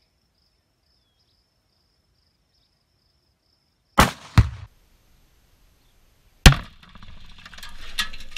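Tannerite detonation blowing apart a washing machine: two sharp bangs about half a second apart, the rifle shot and then the blast arriving from the distant target. About two and a half seconds later comes one very loud close-up blast, followed by a hissing rush and scattered clinks of debris falling.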